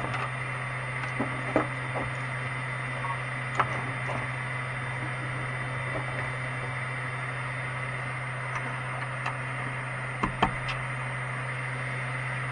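Ender 3 Max 3D printer idling after a finished print, its fans running with a steady hum and hiss. A few sharp clicks break in, two of them close together about ten seconds in.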